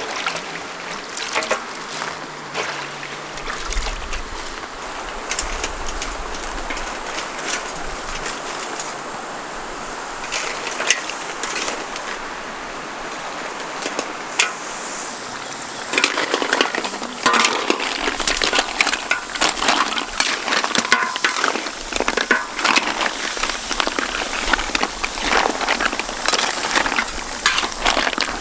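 Water sloshing in a metal basin as fresh red chilies are handled and washed. About halfway through it gives way to a denser run of clicking and crackling: snails in their shells and chilies being stirred and fried in a metal wok over a wood fire, the shells knocking against the pan.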